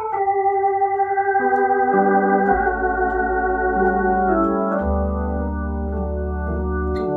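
Hammond H112 valve tonewheel organ playing sustained chords over low bass notes, heard through a double Leslie rotating speaker; the chords change every second or two, and the loudness wavers in the first few seconds.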